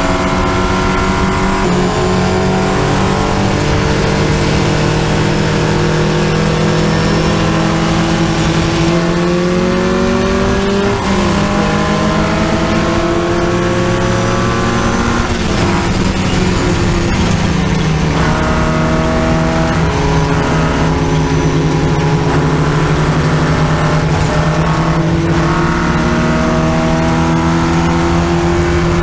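A racing Triumph Spitfire's four-cylinder engine, heard from the cockpit under hard acceleration. Its note climbs steadily in long pulls and falls back sharply several times as the car works through the gears and corners.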